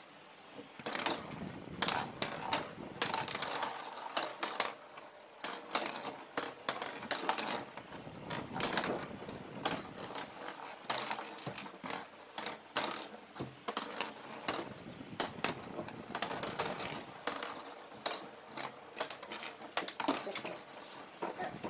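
Small plastic spinning tops spinning on a hard tabletop, making a dense, irregular clatter of clicks and rattles.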